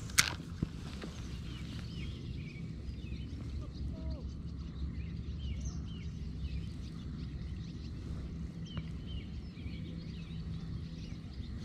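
Small birds chirping and calling in short scattered notes over a steady low rumble, with one sharp click right at the start.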